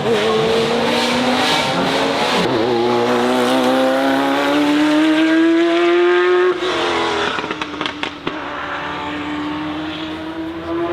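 Ferrari F40 LM's twin-turbo V8 accelerating hard, its note rising through the revs with an upshift about two and a half seconds in. The sound drops away suddenly just past halfway, with a few sharp exhaust cracks. A quieter rising engine note follows as the car pulls away.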